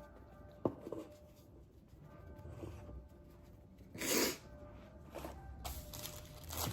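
A woman sneezes once: a single short, sharp burst about four seconds in.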